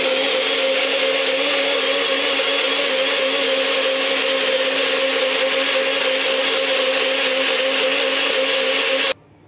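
NutriBullet personal blender running steadily, blending pancake batter, then cutting off abruptly about nine seconds in.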